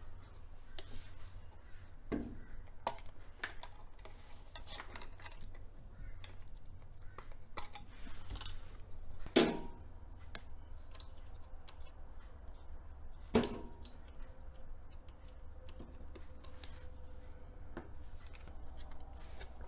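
Small clicks and handling noises from unplugging wire connectors and an earth cable on a fridge control circuit board, with two sharper clicks about nine and thirteen seconds in, over a low steady hum.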